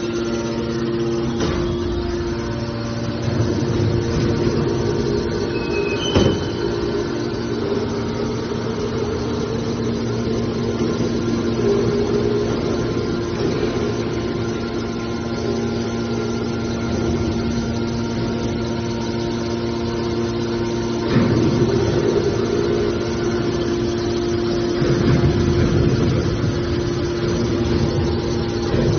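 Hydraulic scrap metal baler's power unit running with a steady hum, with low rumbling swells and a few sharp knocks, the clearest about six seconds in and again about 21 seconds in.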